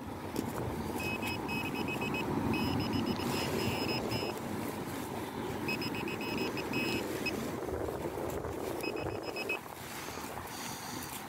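Metal-detecting pinpointer beeping in rapid bursts of short high beeps as it is probed through the dug soil, signalling a metal target close to its tip. A steady rushing noise runs underneath and eases a little near the end.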